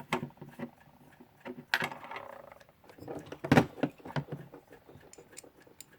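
Small metal clock-movement parts clicking and clinking as they are fitted onto the movement plate by hand, with two sharper clicks about two seconds and three and a half seconds in.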